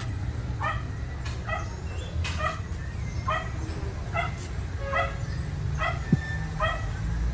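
A dog barking over and over in short, high-pitched barks, evenly spaced about one a second, with a steady low rumble underneath.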